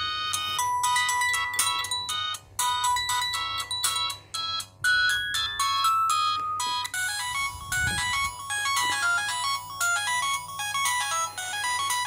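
Samsung SGH-X160 mobile phone playing built-in polyphonic ringtone previews through its small speaker as the list is scrolled. A new melody of short, separate notes starts about half a second in, and a different, faster and busier melody takes over about seven seconds in.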